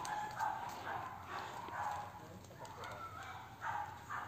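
Short animal calls repeated in quick, irregular succession, several a second.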